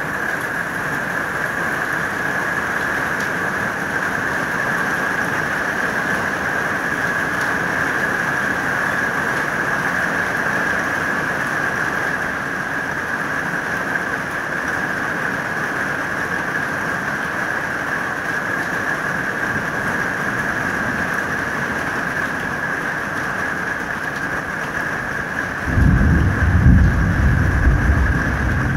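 Steady hiss of heavy rain during a thunderstorm. Near the end a loud, low rumble of thunder suddenly breaks in and keeps rolling.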